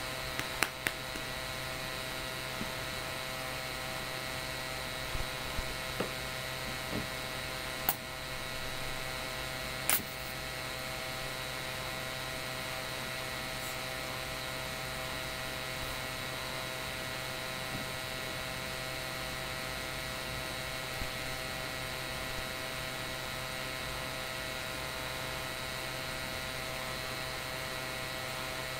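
Steady electrical hum with several fixed tones, unchanging throughout. A handful of sharp clicks and taps sound in the first ten seconds, the loudest about eight and ten seconds in.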